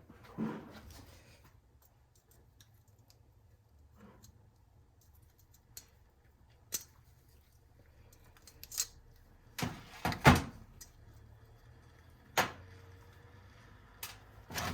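Scattered sharp clicks and clacks of small carburetor parts being handled and set down during disassembly, a few single knocks with a louder cluster about ten seconds in.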